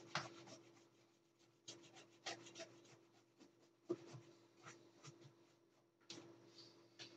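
An amplifier circuit board being scrubbed clean by hand: short bursts of faint rubbing and scratching strokes with brief pauses between them.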